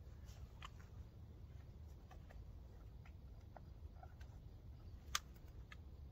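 Faint scattered clicks and ticks of a shotgun and folding chair being handled as the shooter stands and raises the gun, with one sharper click about five seconds in, over a low steady background rumble.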